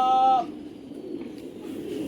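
A flock of pigeons cooing in a low, steady murmur. A loud held pitched call breaks off about half a second in.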